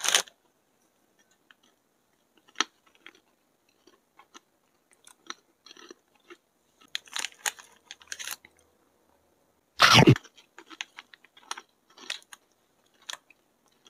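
Close-up chewing and biting of crunchy Meiji Hello Panda biscuits with strawberry filling: irregular crisp crunches, thickest about seven to eight seconds in, with two louder, longer crackles, one at the start and one about ten seconds in.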